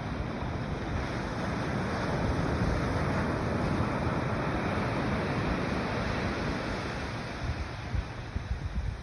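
Ocean surf washing in, a steady rush that swells over the first few seconds and eases off, with wind buffeting the microphone in uneven gusts near the end.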